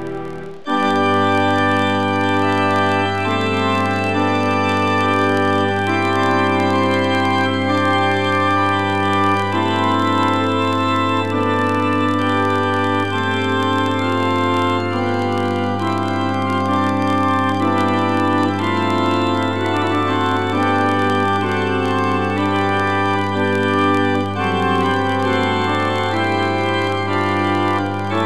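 Background music with an organ sound: sustained chords shifting above a steady held bass note, with a new passage coming in about half a second in.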